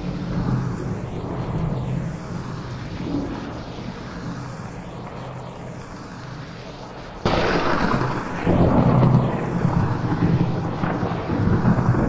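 Thunder rumbling low over steady rain, then a sudden loud thunderclap a little past halfway that keeps rumbling after it. The recording is processed with an 8D effect that sweeps the sound around the listener's head.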